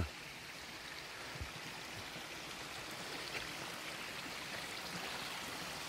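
Shallow water running over bare rock slabs: a steady, even rush that grows slightly louder.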